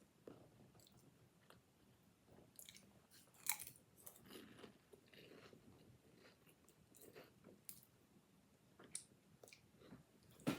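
A person chewing a bite of baklava close to the microphone: faint, irregular crunches of flaky phyllo pastry and soft mouth clicks, the loudest about three and a half seconds in.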